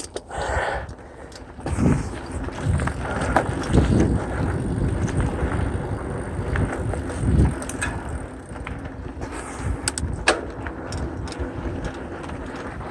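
Mountain bike rolling down a dirt trail: steady tyre and drivetrain noise, with the bike rattling over bumps, a few low thuds and several sharp clicks.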